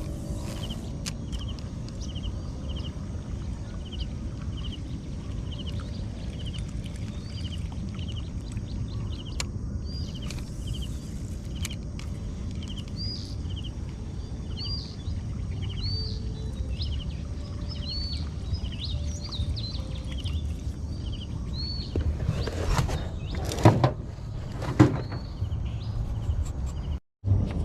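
Birds chirping repeatedly over a steady low background noise, with a few loud sudden noises near the end.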